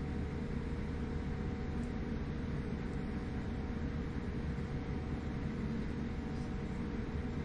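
Steady cabin noise inside a Boeing 787-9 on the ground before takeoff: an even low rumble with a faint constant hum, unchanging throughout.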